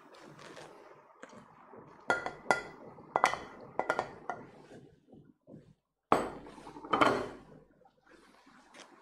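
Cookware clinking and clattering as a pot, its lid and utensils are handled: a run of short clinks, then two louder clanks with a brief ring about six and seven seconds in.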